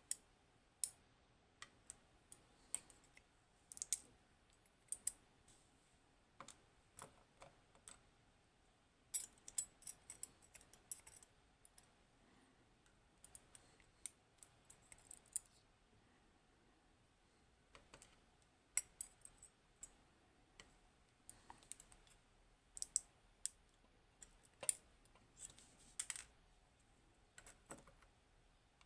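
Faint, irregular small metallic clicks and taps from a Hori Trident pin-tumbler lock's parts and tools being handled as the lock is taken apart, some coming in quick little clusters.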